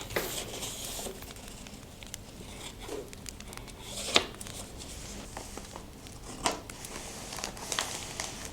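Paper rustling and crinkling, with scattered sharp ticks and a few louder taps, over the soft, steady crackle of a fire.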